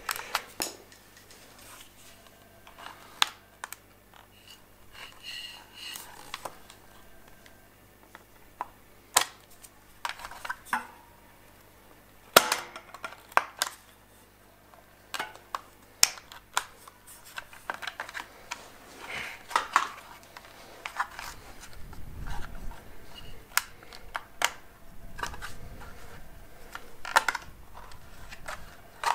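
Scattered sharp clicks and small knocks from hands and a tool working inside the plastic electrical box of an air compressor's motor, prying loose a hot-glued switch among the wiring.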